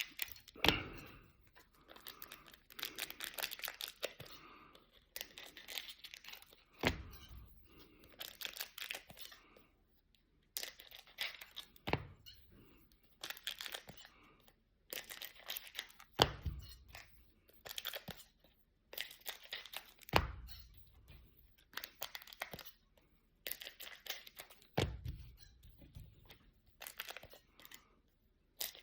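Trading card pack wrappers being torn open and crinkled, with the rustle of cards being handled and a few soft thumps now and then.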